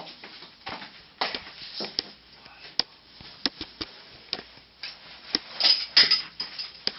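A belt being unbuckled: a string of sharp clicks from the buckle and rustling of clothing, densest and loudest about five to six seconds in.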